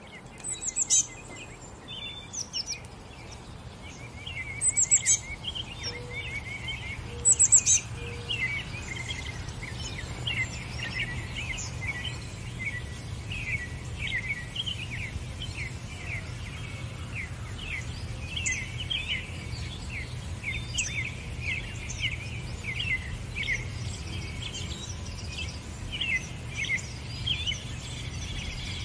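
Small birds chirping and twittering continuously in quick, overlapping notes, with a few louder, higher calls in the first several seconds, over a low steady rumble.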